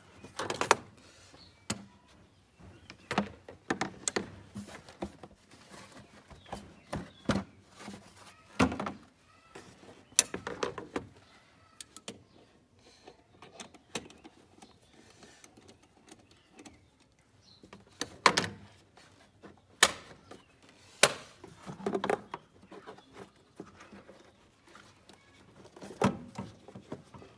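Irregular knocks, clicks and rattles as hands and a wrench work loose plastic air intake ducting and the air filter housing in a car's engine bay.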